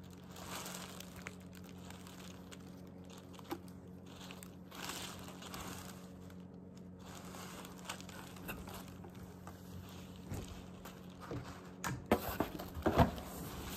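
Soft rustling and crinkling of tissue paper as baby clothes are lifted out of it, over a faint steady hum. About twelve seconds in come several sharper knocks and scrapes as the cardboard shipping box's flaps are handled.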